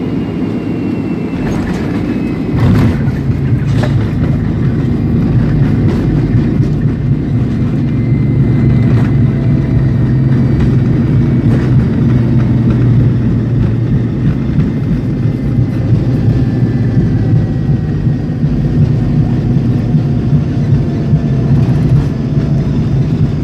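Jet airliner slowing down on the runway after touchdown, heard from inside the cabin: a loud, steady engine and runway rumble that grows louder about three seconds in, with a few clunks near the start and a faint whine that slowly falls in pitch.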